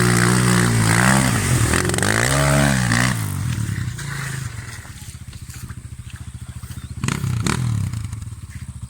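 250cc enduro motorcycle revving hard, its pitch rising and falling, as it pulls away, then fading after about three seconds. A motorcycle then idles steadily close by, with a short throttle blip about seven seconds in.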